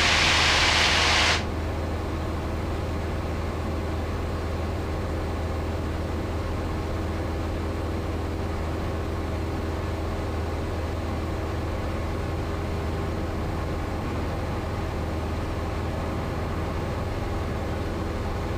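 Cessna 172's engine and propeller droning steadily in cruise, heard from inside the cockpit. A loud hiss lies over it at first and cuts off suddenly about a second and a half in.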